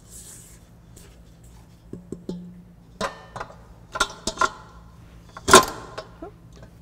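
Stainless steel stand-mixer bowl knocking and clanking as it is handled and scraped down, a series of knocks with a short metallic ring after several of them. The loudest clank comes about five and a half seconds in.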